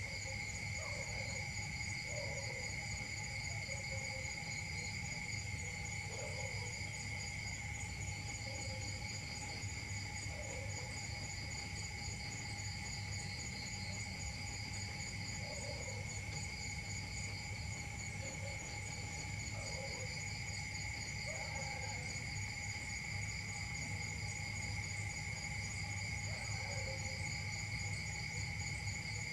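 Steady insect chorus with several high, continuous trilling tones. Faint short chirping calls come every couple of seconds over a low background rumble.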